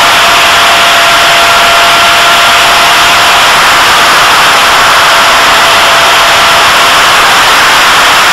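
An RC model plane's electric motor and propeller running steadily in flight, a thin steady whine under a loud rush of air noise, as picked up by a camera mounted on the plane.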